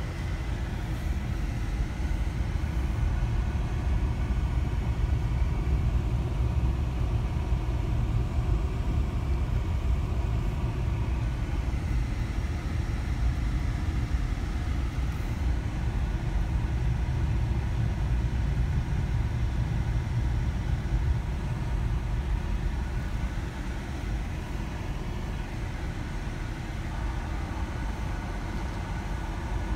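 Engine and road noise heard from inside a moving car's cabin: a steady, deep rumble that eases slightly near the end.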